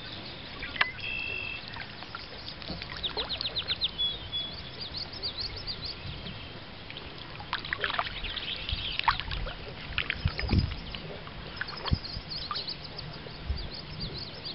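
Kayak paddle strokes swishing and dripping in calm water, with a few sharp knocks, while small birds chirp and call, including a fast trill of repeated notes a few seconds in.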